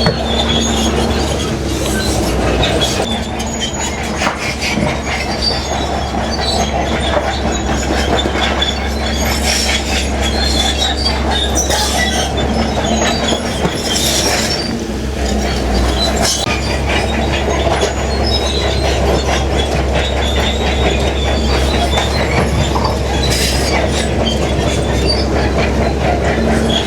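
Large bulldozer at work: its diesel engine drones steadily under a continuous metallic clatter and squeal from its steel tracks.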